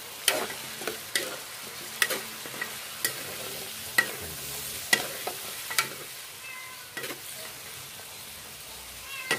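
Spatula scraping and knocking against an aluminium wok about once a second as chicken feet are stir-fried in soy sauce, over a steady sizzle; the knocks thin out in the last couple of seconds.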